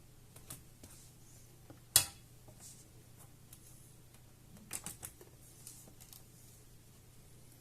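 Scattered small clicks and taps of plastic laptop display parts being handled: one sharp click about two seconds in and a quick run of taps around five seconds, over a faint low hum.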